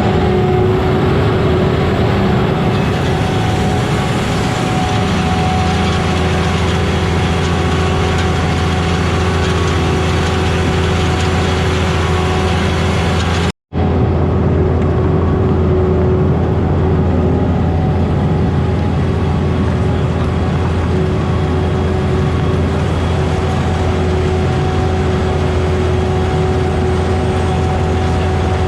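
Kleine SF10.2 sugar beet harvester running steadily under load, a constant low engine drone with a steady whine from the machinery. The sound cuts out for an instant about halfway through.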